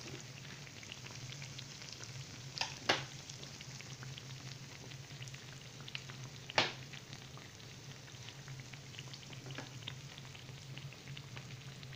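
Yeast-dough beignets frying in hot oil in a pan: a soft, steady sizzle with fine scattered crackles. Sharp clicks come about 3 seconds in and again around six and a half seconds, over a low steady hum.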